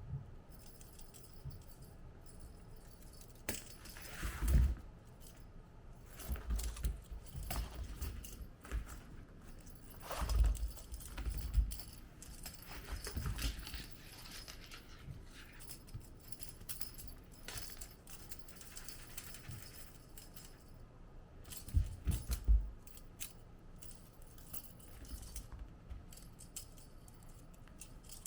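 Small metallic jingling and light rattling of cat toys during kitten play, with occasional soft thumps.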